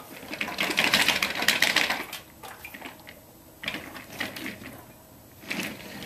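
Oil draining back down through the columns of a new oil-filled radiator heater after it was tipped, crackling and gurgling in rapid fine clicks. It goes dense for about two seconds, comes back in a shorter burst, then fades out.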